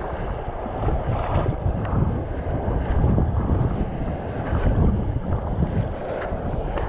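Wind buffeting the microphone in gusts over the wash of ocean surf.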